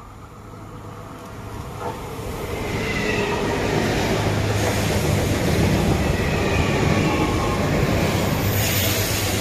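A TER regional electric train passes close by. It swells over the first few seconds to a steady rumble of wheels on rail, with faint thin wheel-squeal tones above it.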